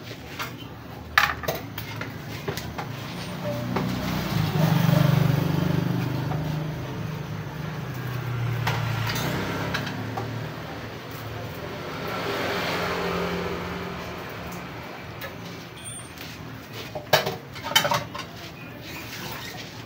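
A motor vehicle's engine swells up and fades away twice, from about four seconds in to ten and again around twelve to fourteen. A few sharp clicks come about a second in and near the end.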